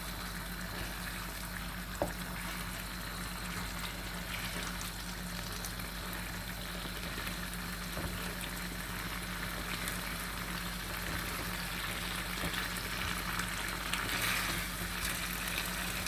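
Food sizzling and bubbling in a pan, a steady hiss, with one light click about two seconds in.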